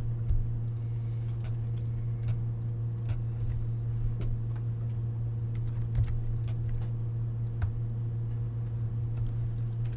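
Scattered, irregular clicks of a computer mouse and keyboard over a steady low hum.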